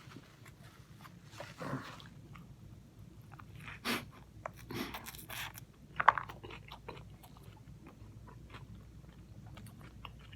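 Close-miked eating of a crispy buffalo chicken sandwich: crunchy bites and wet chewing, with the sharpest crunch about six seconds in, then quieter small chewing clicks.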